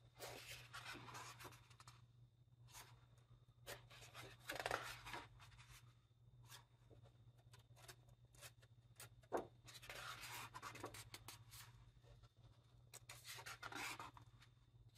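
Paper pages of a large hardcover book being handled and turned by hand: about four soft rustles and swishes of paper, with quiet gaps between them, over a faint low hum.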